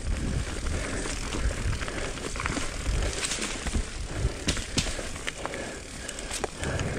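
Mountain bike riding down a dirt singletrack strewn with dry leaves: tyres rolling over leaves and dirt in a steady rushing noise, with frequent sharp clicks and clatters of the bike's chain and parts over bumps, and a low rumble of wind and rough ground at the handlebar-mounted microphone.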